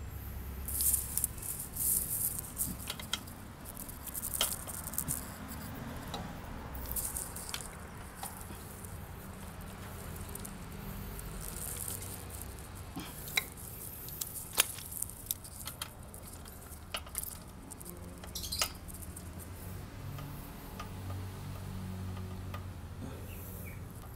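Scattered small clicks, ticks and rattles of hands fastening a motorcycle radiator guard's bolts, with short rustling bursts, over a low steady rumble.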